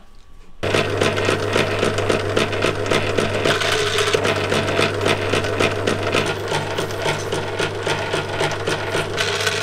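Motor-driven leather-strap roller machine switching on about half a second in, then running steadily with a low hum and fast rhythmic clatter as a leather belt strap is fed past its steel roller.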